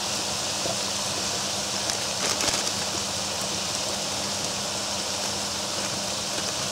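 Sliced strips with onions and garlic sizzling steadily as they fry in oil in a deep pan, with a faint steady hum under it.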